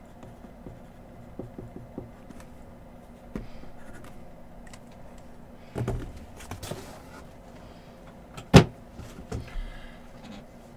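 Handling of a cardboard hobby box: faint marker scratches and small taps, a shuffling rustle about six seconds in, then one sharp knock, the loudest sound, a little later.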